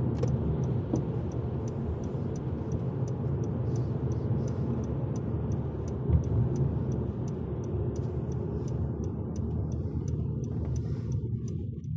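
Steady low tyre and road rumble inside a car's cabin while driving on a snowy road, with the turn-signal indicator ticking at an even pace from a couple of seconds in. The rumble dies away near the end as the car slows.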